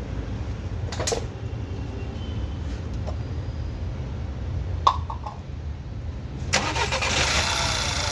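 Skoda petrol engine being started: a couple of clicks, then about six and a half seconds in it cranks and catches, running louder to the end. It is started after oil was cleaned from cylinder 1's fouled spark plug and ignition coil, to check whether the cylinder 1 misfire is gone.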